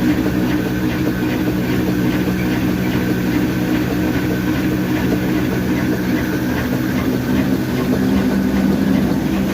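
Heavy old black stationary diesel engine that powers a flour mill, running steadily with a constant low throb and a faint regular ticking over it.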